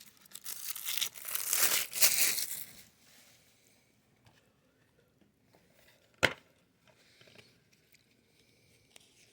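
Plastic shrink wrap being torn and crinkled off a DVD case for about three seconds, followed a few seconds later by a single sharp plastic click.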